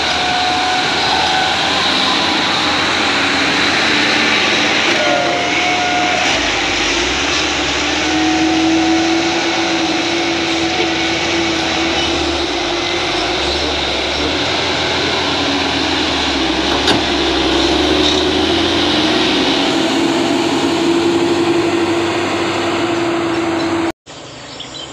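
Diesel engines of heavy trucks, a Mitsubishi Fuso 8x4 and a Hino 500, running close by as they climb a rough dirt road. A steady engine drone with a deep rumble that swells through the middle, cutting off suddenly near the end.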